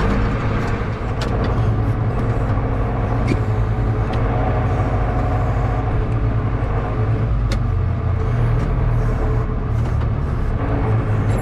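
Old John Deere tractor engine running steadily under a low, even drone, with a few sharp clicks over it.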